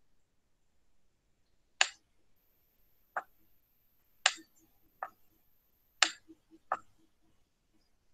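Computer mouse clicking: about six sharp single clicks at uneven intervals, with a few fainter ticks between the last two.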